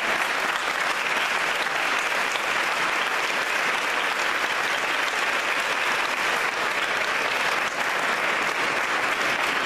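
A church congregation applauding steadily, many hands clapping at once.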